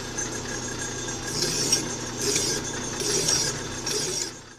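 Metal lathe running with a steady hum while a coarse flat file is stroked against the rim of a spinning hand wheel, giving a rasping hiss with each stroke. Four strokes come about one a second, starting about a second in.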